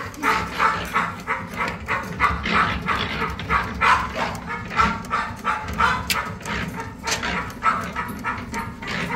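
Pit bull puppy barking over and over in short, high yaps, about two a second.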